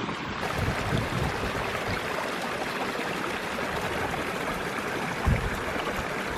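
Strong wind rushing and buffeting against the microphone, with uneven low rumbling and a louder gust about five seconds in.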